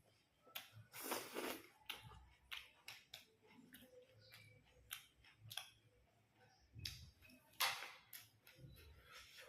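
A person eating and chewing: scattered small clicks, with two longer, louder bursts about a second in and about eight seconds in.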